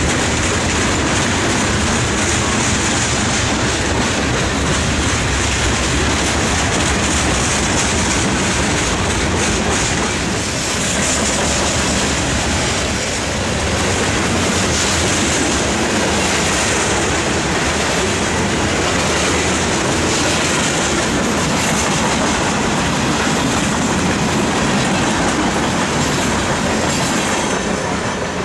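CSX freight train's cars, boxcars and covered hoppers, rolling past close by: a steady loud clatter of steel wheels on the rails. It fades a little near the end as the last car goes by.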